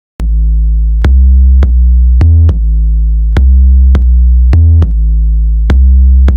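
Electronic outro music with a deep, heavy synth bass line and sharp drum-machine hits, starting abruptly from silence just after the start.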